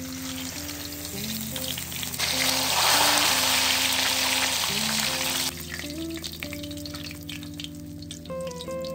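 Food sizzling in hot oil, swelling much louder for about three seconds in the middle, over soft background music.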